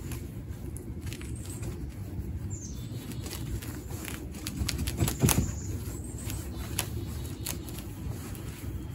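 Fibrous roots of a bare-root cherry tree being raked out by hand: continuous scratching and rustling of roots and loose soil, with many small clicks and a louder scrape about five seconds in.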